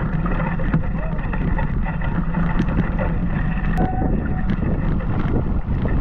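Steady wind rumbling on the microphone, with voices in the background.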